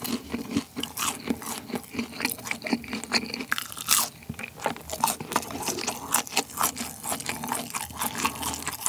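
Close-miked chewing of McDonald's Chicken McNuggets: quick, irregular crunches and crackles of the fried breaded crust between the teeth.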